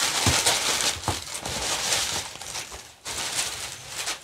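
Packing paper crinkling and rustling as a new sneaker is lifted out of its box, with a few soft knocks as the shoe is handled.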